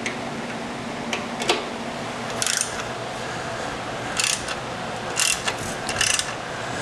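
Hand ratchet wrench clicking in about six short runs as a bolt on a motorcycle's rear brake lever bracket is tightened.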